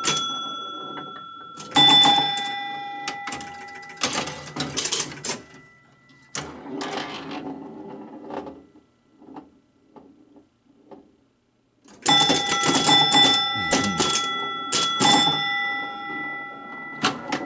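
1969 Gottlieb Airport electromechanical pinball machine in play: its scoring chimes ring with a long decay amid the clacking of relays, coils and score reels. A quieter stretch of faint ticks comes midway, then a rapid run of chime strikes and clatter.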